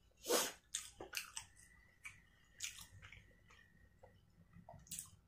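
A person chewing food close to the microphone, with soft, irregular wet mouth clicks and smacks.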